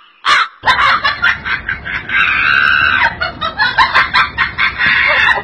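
Siberian husky vocalizing: a rapid run of high-pitched whining, yowling calls, with one long held note about two seconds in.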